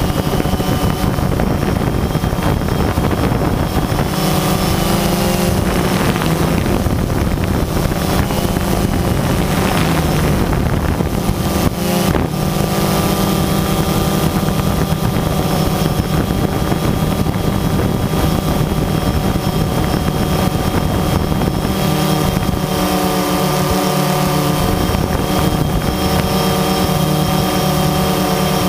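DJI Phantom 2 quadcopter's four electric motors and propellers whining steadily in flight, heard close from the drone's onboard camera. Several steady tones waver briefly about twelve seconds in as the motors adjust speed, with wind noise on the microphone.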